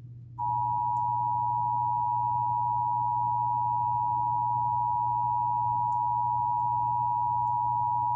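Emergency Alert System attention signal: the steady two-tone alert tone at 853 and 960 Hz, held unbroken from about half a second in, over a low steady hum.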